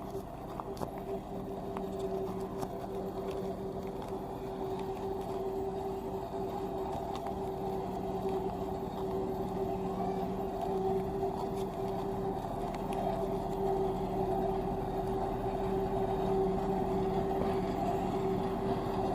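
Tandem road roller's engine running steadily with a constant-pitch hum, slowly growing louder.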